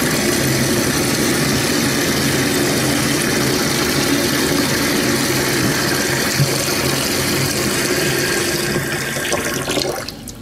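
Running water filling a bath, a steady rush that dies away near the end.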